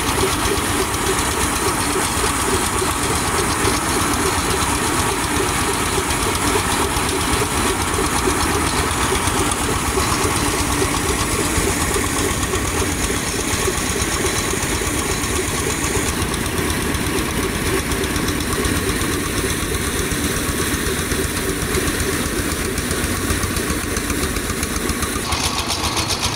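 Small diesel engine running steadily at working speed, driving a paddy threshing drum, with a dense, even knocking beat under a loud continuous machine noise.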